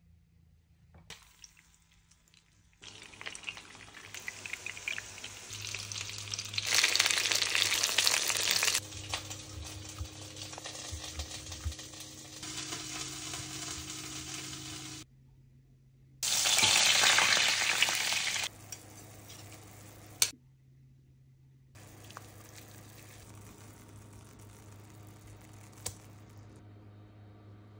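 Chicken breasts frying in oil and butter in a pan, a steady sizzle after a quiet start, swelling into two loud stretches of a couple of seconds each, with sudden cuts between them. Near the end, a softer steady bubbling of stock and butter simmering in the pan.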